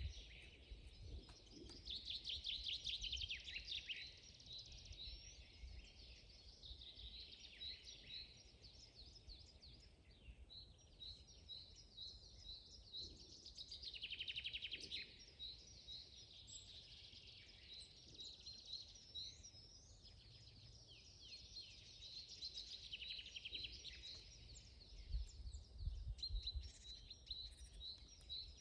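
Several wild birds singing together: overlapping chirps, repeated clear notes and rapid trills, with denser trilling about two seconds in and again around fourteen seconds, over a faint low rumble.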